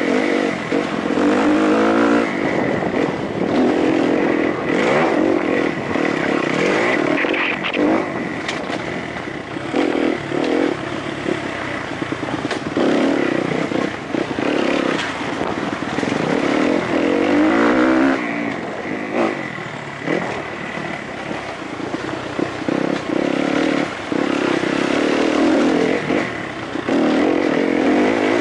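Kawasaki KX-F four-stroke motocross bike engine heard close up from on board, revving up and dropping back every few seconds as the throttle is worked along a twisting dirt trail, with knocks and rattles from the rough ground.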